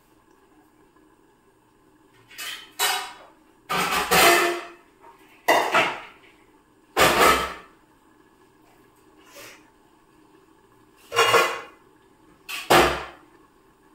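Steel pots and utensils clattering and clanking: about seven short, loud clatters spread irregularly, with quiet in between.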